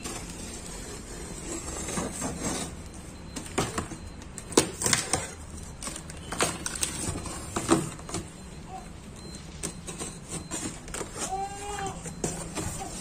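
Cardboard carton being opened by hand: packing tape ripping and cardboard flaps scraping and rustling in a series of sharp bursts. Near the end a baby cries briefly.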